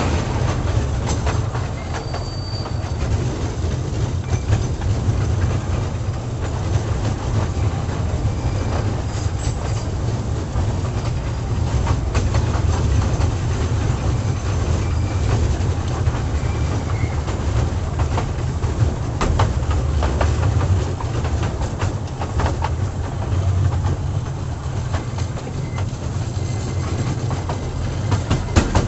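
Small toy train running on its track, heard from an open-sided coach: a steady low rumble of the coaches rolling, with scattered clicks from the wheels over the rail joints.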